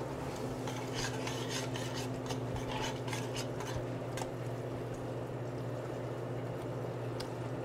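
Metal spoon stirring and scraping a thick walnut-and-herb sauce in a stainless steel stockpot, with short scrapes and clinks against the pot, most of them in the first four seconds. A steady low hum runs underneath.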